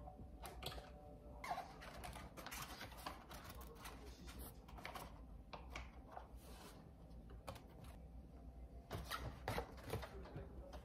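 Irregular light clicks and taps, with some rustling between them.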